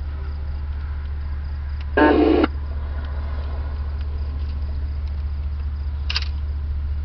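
Radio scanner between transmissions: a steady low hum, a loud half-second beep about two seconds in, and a shorter, higher blip near six seconds.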